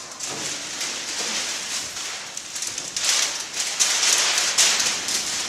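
Flip-chart paper rustling and crinkling as its large sheets are handled and turned, louder from about three seconds in.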